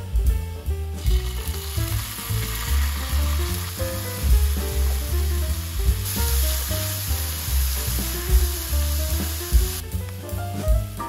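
Food sizzling in a hot frying pan, starting about a second in, getting louder around the middle and stopping shortly before the end, with jazz background music underneath.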